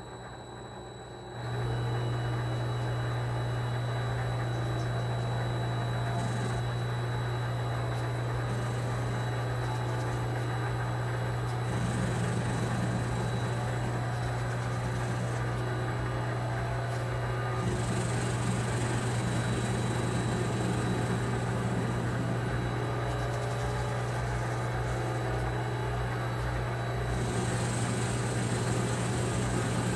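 Vevor MX 400 mini lathe running, its motor and spindle giving a steady hum that comes up to speed about a second and a half in. The tool facing off the rough-cut end of the workpiece adds a cutting hiss that comes and goes, strongest for a long stretch in the second half.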